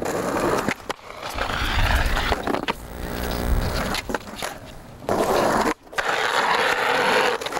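Skateboard wheels rolling on rough concrete. Near the end, after a brief break, the trucks grind along a concrete ledge.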